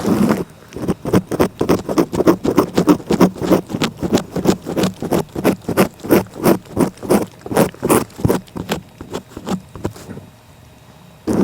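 A cat licking close to the microphone: a quick, even run of short licks, about three or four a second, that pauses briefly near the end.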